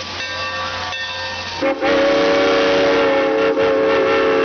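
Santa Fe 3751 steam locomotive's chime whistle sounding several notes together: a short toot, then about two seconds in one long steady blast.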